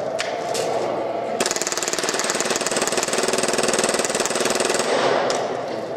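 Action Army AAP-01 gas blowback airsoft pistol firing full auto: a few clicks, then one fast, even rattle of shots lasting about three and a half seconds that empties the magazine.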